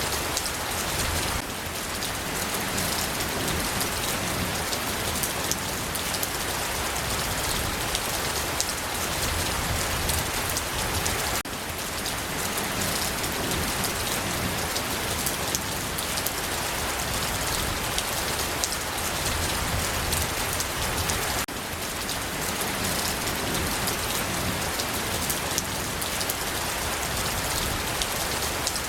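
Steady rain falling, a dense even hiss speckled with the ticks of individual raindrops on a surface, dipping briefly in level about every ten seconds.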